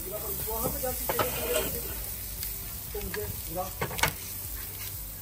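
Food sizzling as it fries in a pan while a utensil stirs it, knocking against the pan in several sharp clinks; the loudest comes about four seconds in.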